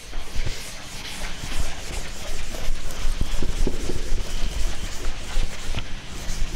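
Chalkboard duster rubbing over a blackboard to erase it: continuous scrubbing strokes with small knocks.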